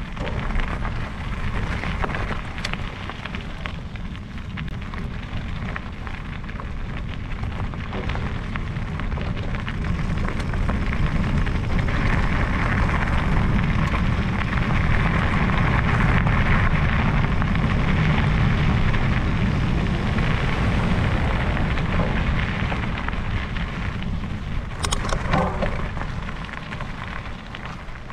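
Wind rushing over the microphone of a camera riding on a moving e-mountain bike, mixed with the crackle and rumble of tyres on a rough track; it grows louder through the middle and eases near the end, with a brief burst of rattling about 25 seconds in.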